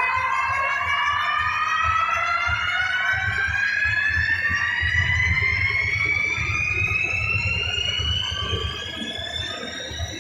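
A sound-system effect: a single electronic tone climbing slowly and evenly in pitch, like a stretched siren sweep, over low rumbling. It eases off a little near the end.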